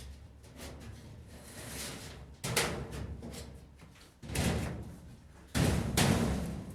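A few sudden bangs and knocks, like a door or lid being shut, the loudest two close together near the end.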